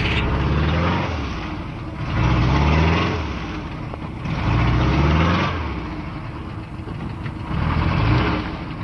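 ZAZ-968M Zaporozhets's rear-mounted air-cooled V4 engine revving in four rising surges, about every two to three seconds, as the car sits bogged down in deep mud.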